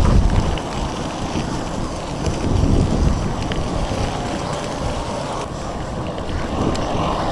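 Wind buffeting a handheld camera's microphone while riding a bicycle: a steady, gusty low rumble with a few faint clicks.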